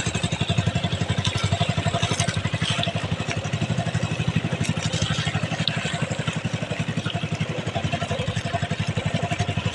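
Small Honda gasoline engine of an outrigger banca running at steady cruising speed, with an even, rapid pulse of exhaust beats.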